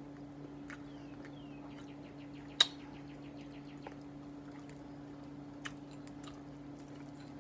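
Quiet room with a steady low hum, broken by one sharp clink of a metal fork against a glass baking dish between two and three seconds in and a few softer clicks. A few faint, short high chirps sound about a second in.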